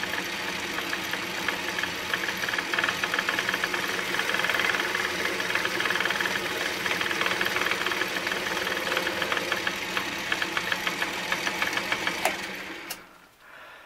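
Atlas metal lathe running while a turning tool cuts a spinning metal workpiece: a steady machine hum with fast, uneven ticking through the cut. The sound stops abruptly with a click near the end.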